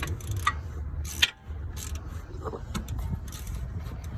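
Irregular metallic clicks and clanks of hand tools working at the belt tensioner in a car's engine bay, the sharpest about a second in, over a steady low rumble.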